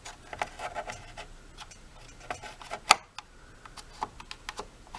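Light plastic clicks and knocks as the brush roll motor is seated into the vacuum's plastic housing, with one sharper click about three seconds in.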